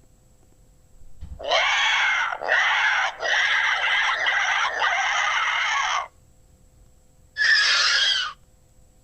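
Griffin creature sound effect: a string of shrill, screeching animal cries for several seconds, then a pause and one shorter cry near the end.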